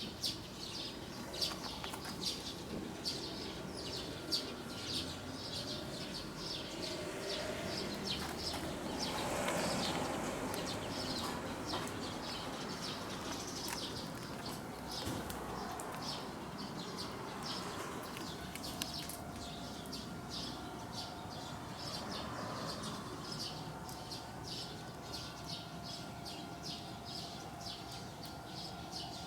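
Outdoor ambience of small birds chirping rapidly and continuously, with a broad swell of background noise about nine seconds in and a faint steady hum later on.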